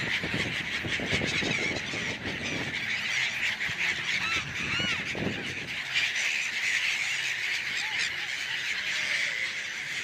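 A large flock of gulls calling all together in a dense, continuous chorus of overlapping cries, with a few single arched calls standing out near the middle. Flapping wings of birds taking off close by can be heard, mostly in the first few seconds.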